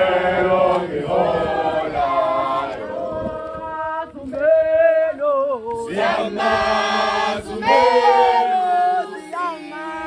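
A group of women and men singing together, with long held notes. The singing comes in waves, fullest near the start and again about six seconds in.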